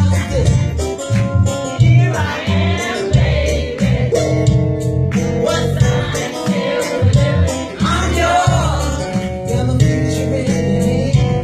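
Soul music: singing over a steady bass line, drums and guitar.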